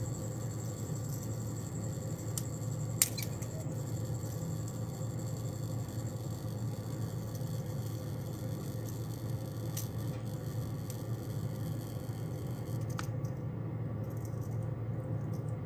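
Small metallic clicks of split-ring pliers and steel treble hooks being worked onto a topwater lure's split ring, one sharp click about three seconds in and a few fainter ones later, over a steady low background hum.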